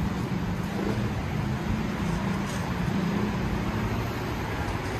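Steady city street traffic: car and bus engines running with a low hum, and tyre noise on wet asphalt.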